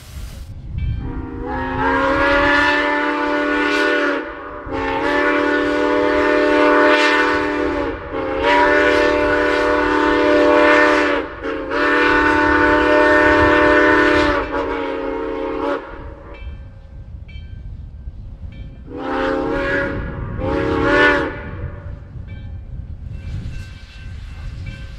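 Chime steam whistle of 2-8-2 Mikado #4960 sounding a chord in a run of long blasts, then two short blasts after a pause, over the locomotive's low rumble. Near the end, steam hisses from the cylinder cocks as the locomotive pulls out.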